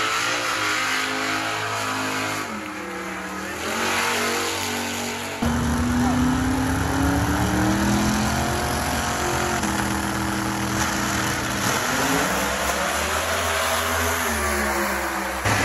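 Drag race car engines revving loudly. From about five seconds in, one engine's pitch climbs steadily, then drops back in several steps.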